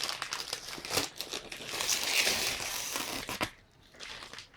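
Gift wrapping paper crinkling and tearing in quick rustling handfuls, dying down about three and a half seconds in.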